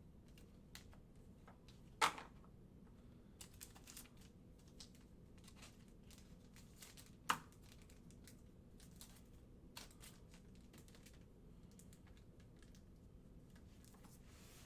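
Faint handling of basketball trading cards and their pack wrappers: scattered light clicks and short crinkles, with two sharper taps about two seconds and seven seconds in.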